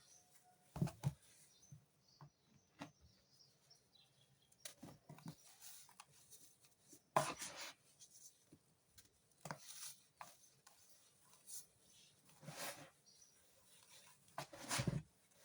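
Compacted sand crunching and crumbling as it is pressed and broken apart, in irregular gritty crunches a second or two apart, the loudest about seven seconds in.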